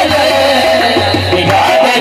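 Qawwali music: two harmoniums playing the melody over a steady hand-drum rhythm, with voices singing.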